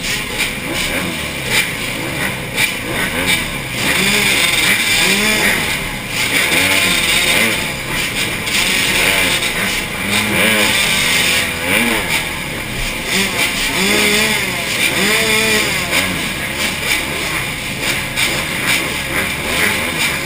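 A row of motocross bikes, among them a Honda CRF150R with its 150cc four-stroke single, running on the start line while the riders blip their throttles again and again, each rev rising and falling in pitch over a constant engine drone.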